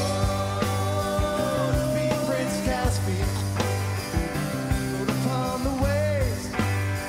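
Background rock music with a steady beat, bass and a wavering lead melody.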